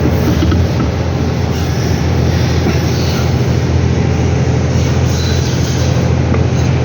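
Steady, loud mechanical drone: a deep hum with an even hiss over it, unchanging throughout.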